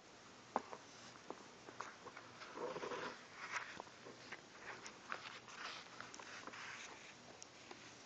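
Handling noise from a soft roll-up case of lock picks: soft rustling with scattered small clicks and taps.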